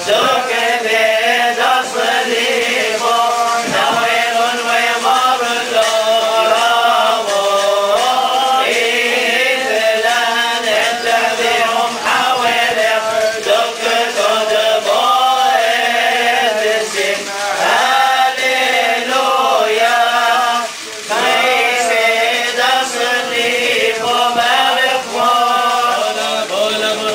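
Male clergy chanting a liturgical hymn together, phrase after phrase with brief breaks between them and a short pause about three-quarters of the way through.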